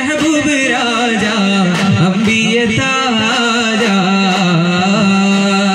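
Duff Muttu song: men's voices singing a melodic, ornamented line over a held note, with daf frame drums struck by hand in rhythm.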